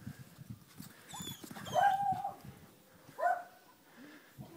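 German Shepherd puppies barking: three short high-pitched barks, the middle one longer and loudest.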